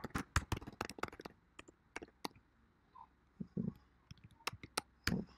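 Computer keyboard keys clicking as code is typed: a quick run of keystrokes, then scattered single ones and a few more near the end.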